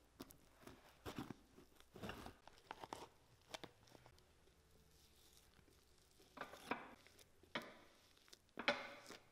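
Faint crunching scrapes of a metal scraper and spatula working granulated cork filler: old cork scraped off a boot's footbed, then new cork fill scooped from a can and spread on, in several short strokes.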